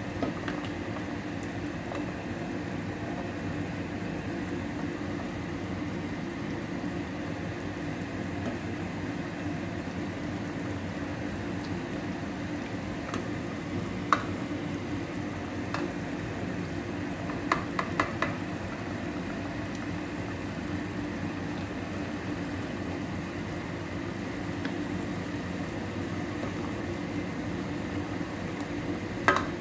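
Beef stew simmering in a granite-coated pot, bubbling steadily, while a ladle stirs it and clinks against the pot a few times, three quick taps together about two-thirds of the way through.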